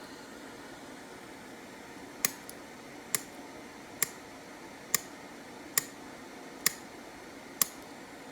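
Hand punch snapping through hard solder to cut small chips: seven sharp clicks, about one a second, starting about two seconds in.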